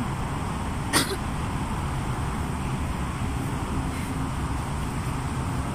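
Badminton racket striking a shuttlecock once, a sharp smack about a second in, over a steady low background rumble.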